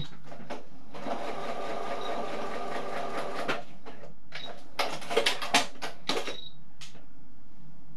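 Electric domestic sewing machine stitching through light cotton fabric: it runs steadily for a couple of seconds from about a second in, then stops. A few sharp clicks follow as the machine is handled.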